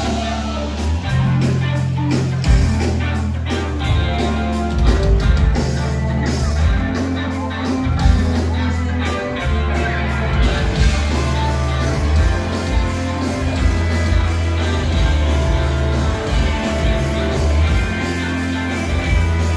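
Loud live rock music with guitar, a heavy bass line and singing, heard from within the crowd.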